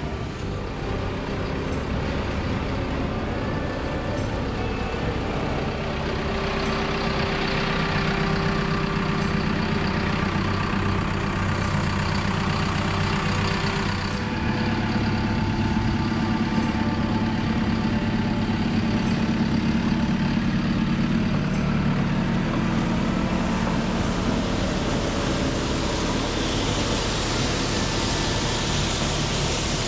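Diesel engine of a bucket-equipped piece of heavy equipment running steadily while it scoops and carries ballast stone, its pitch and load shifting a few times.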